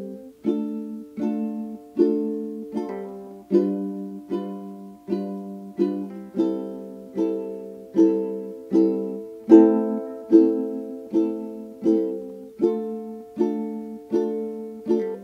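Background music: a plucked string instrument strumming chords at a steady beat, about one chord every three-quarters of a second.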